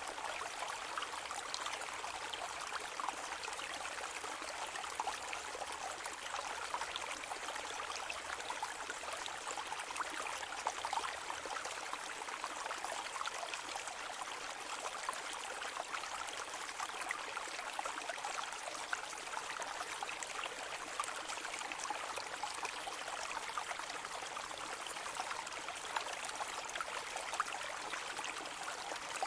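Steady rain falling on a lake: a dense, even patter of countless small drops striking the water surface.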